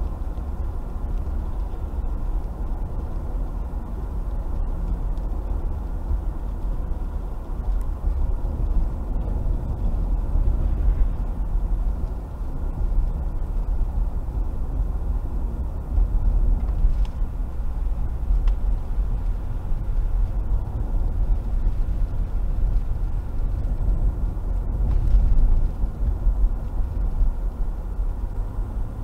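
A car driving on a wet road, heard from inside the cabin: a steady low rumble of tyres and engine, with a few faint ticks.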